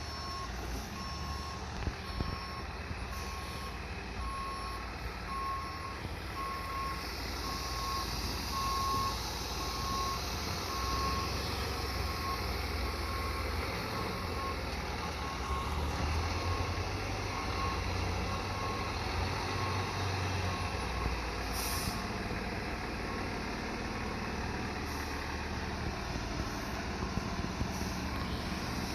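Fire truck's backup alarm beeping steadily, about once a second, as the truck reverses with its diesel engine running underneath. A brief hiss of air comes about two-thirds of the way through.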